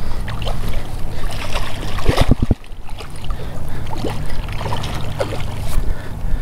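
Wind buffeting the microphone as a steady low rumble, with a short cluster of sharp knocks about two seconds in.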